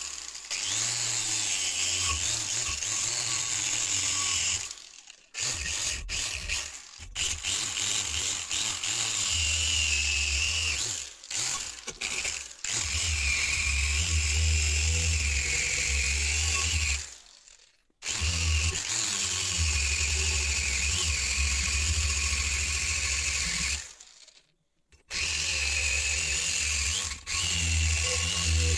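Angle grinder with a twisted-wire cup brush running against the rusty steel blade of a spade, scrubbing off rust, with a steady whine over a high hiss. The sound cuts out abruptly several times, and each time the grinder comes back running on the steel.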